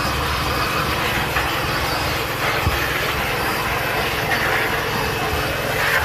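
Vacuum cleaner running steadily: an even rush of drawn air over a low motor hum.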